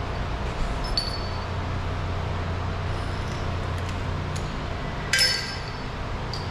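Metal tools or fasteners clinking while a car's trim is taken apart: a light click with a brief ring about a second in, then a louder ringing metallic clink about five seconds in, over a steady low hum.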